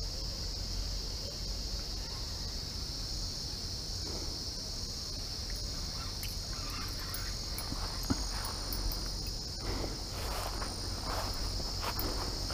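Steady high-pitched insect chorus. In the last few seconds, footsteps and rustling through grass.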